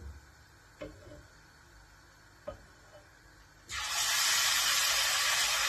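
A ladleful of tomato sauce poured into a frying pan of hot chili paste fried in onion oil, setting off a sudden loud sizzle about two-thirds of the way in that keeps going. Before it, only a couple of faint knocks.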